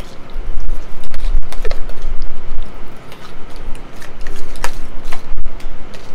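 A metal spoon and fork scraping and clicking against plastic plates as the last noodles are scooped up, many short clicks in quick succession over a low rumble.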